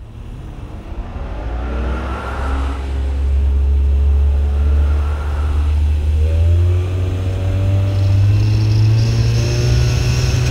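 Outboard motor driving a small motorboat at speed, getting louder and rising in pitch as it accelerates over the first few seconds, and climbing again about seven seconds in. The rush of water and wind along the hull runs beneath it.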